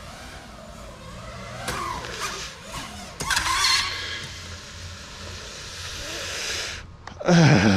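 FPV racing drone's motors and propellers whining as the throttle rises and falls, with a louder burst about three seconds in. Near the end a sudden loud sound sets in and its pitch falls.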